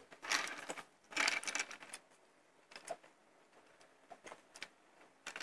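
Drinking from a stainless-steel tumbler through a metal straw: two short rattly sips or rattles about a second apart, then a few faint clicks.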